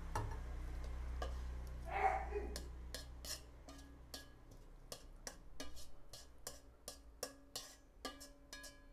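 A metal spatula scrapes and taps against a tilted wok as stir-fried bean sprouts are pushed out into a bowl. There is a quick, uneven run of sharp metallic clicks, about two or three a second, over a low hum that fades out in the first few seconds.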